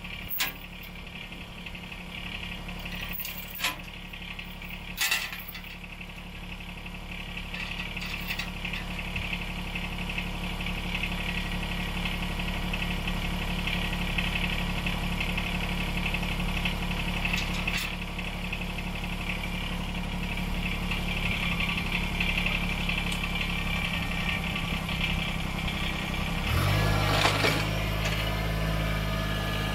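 Kubota BX25D compact tractor's three-cylinder diesel idling steadily, with two sharp metallic clanks of a chain in the first five seconds. The engine note changes about 26 seconds in.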